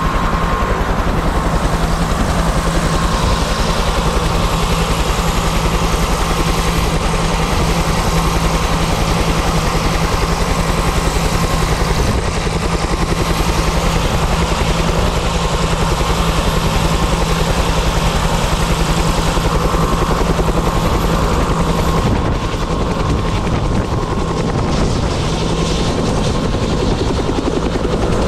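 Bell UH-1 "Huey" helicopter running on the ground, its two-blade main rotor beating in a fast steady pulse over a steady turbine whine, lifting off near the end.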